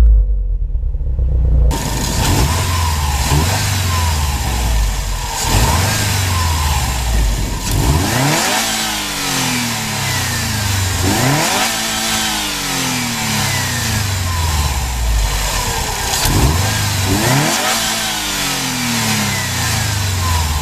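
Subaru WRX STI's turbocharged flat-four boxer engine on its stock exhaust, revved again and again in short blips: each rev rises quickly and then sinks back to idle. For the first couple of seconds only a muffled low rumble is heard, before the sound opens up to the full engine note.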